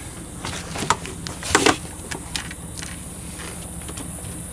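Dock line being worked around a metal deck cleat on a boat's gunwale: a scattering of small clicks and knocks from rope and cleat, over a steady low hum.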